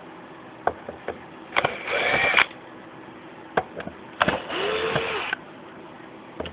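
Power drill/driver backing screws out of an amplifier's metal plate: two short bursts of the motor spinning up and down, about two and four seconds in, with clicks of the bit on the screw heads between them.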